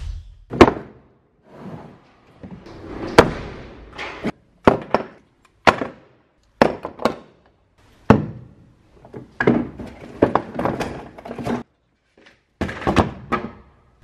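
An irregular series of knocks and thuds, about a dozen, some in quick clusters: a metal ski vise and workshop tools being handled on a wooden workbench.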